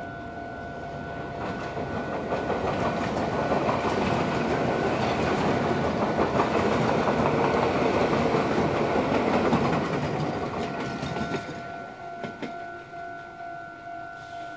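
Red Meitetsu electric train passing over a steel truss railway bridge, its wheels clattering over the rail joints. The rumble builds over a few seconds, holds, then fades.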